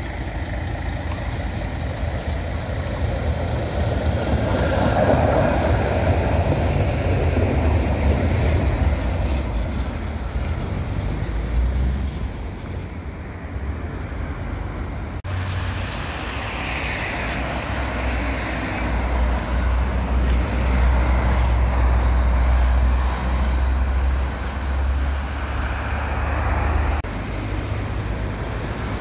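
A two-car tram set rolling along street track as it approaches, with a thin high whine for several seconds about four seconds in. Street traffic is heard behind it, and a heavy low rumble suggests wind buffeting the microphone.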